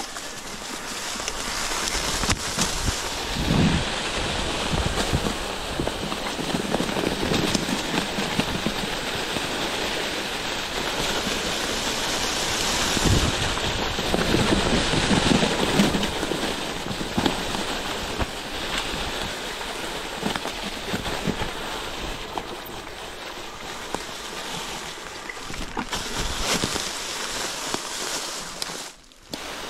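Wind rushing over the microphone, with rumbling and knocks from a mountain bike riding over rough ground. The sound drops out briefly near the end.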